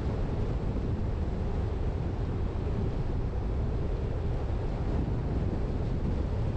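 Steady low rumble of road and wind noise from a moving vehicle, even throughout with no engine note standing out.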